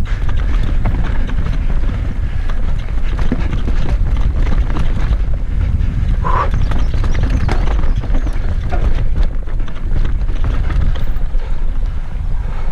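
Mountain bike descending a rocky dirt trail at speed: a constant rapid clatter of the tyres and bike rattling over stones, under heavy wind rumble on the camera microphone.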